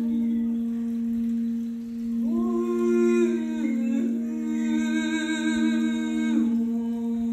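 Sugilite Alchemy crystal singing bowl ringing with a steady sustained tone as the wand circles its rim. A woman's voice tones over it in two long held notes from about two seconds in, the second wavering and ending about six and a half seconds in.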